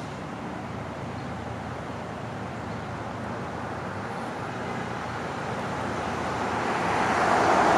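Street traffic: steady road noise, with a motor vehicle approaching and growing louder over the last few seconds as it passes close.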